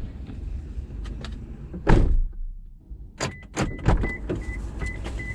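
Car engine running with a low rumble, with a sharp knock about two seconds in; it stops a little before three seconds in. Then come clicks of the door and a high warning chime beeping repeatedly, about twice a second, the chime a car gives when a door is open with the key still in.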